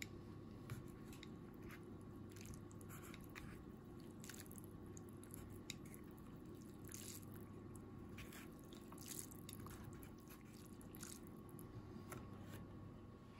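Chopsticks stirring noodles and soup in an instant-ramen cup: faint, irregular soft squishes and small wet sloshes with occasional light taps, over a low steady room hum. The stirring stops near the end.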